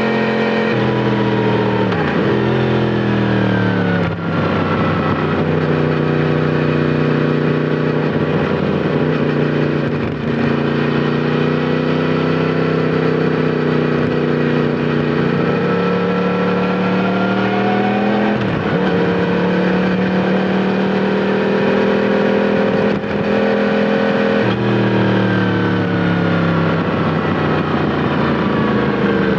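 Yamaha MT-10 SP's crossplane inline-four engine heard onboard through an Akrapovic titanium slip-on exhaust while riding. The engine note holds steady or climbs slowly, then drops sharply in pitch several times.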